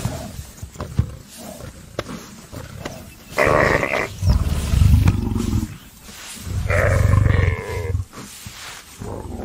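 A lioness growling in three heavy bursts, the middle one the loudest, as she wrestles a male kudu to the ground. A few scuffling knocks come before the growls.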